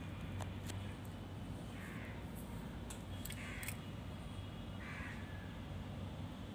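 Three short, rough bird calls about a second and a half apart, over a steady low hum.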